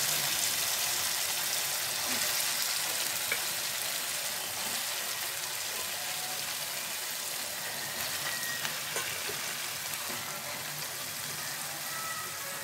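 Chicken pieces frying in hot ghee with onions in a kadai, a steady sizzling hiss that eases off slightly, with a few light taps of a wooden spatula against the pan.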